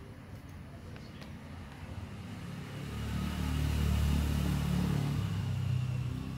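Low rumble of a motor vehicle's engine that swells about three seconds in and fades near the end, like a car going past.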